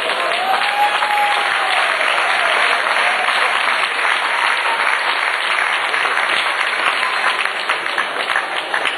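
Audience applauding steadily, a dense patter of many hands clapping, urging on a competition climber mid-route.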